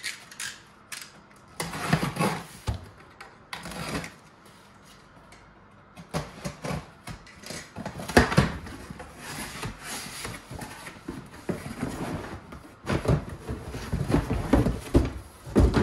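Cardboard shipping box being opened and unpacked by hand: irregular rustles, scrapes and sharp knocks of cardboard and packaging, with a quieter spell a few seconds in and busier, louder handling near the end.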